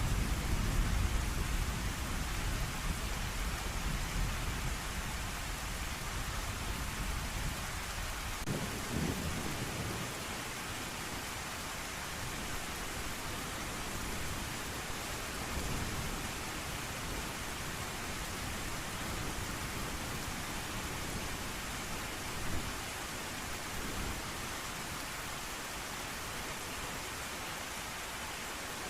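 Steady heavy rain, with a long low rumble of thunder at the start that fades away over the first eight seconds or so.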